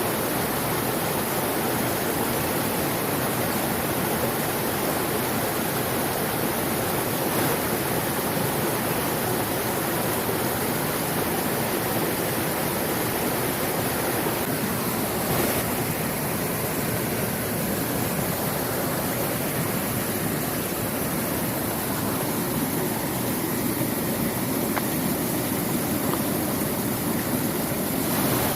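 A mountain stream's water rushing steadily over rocks.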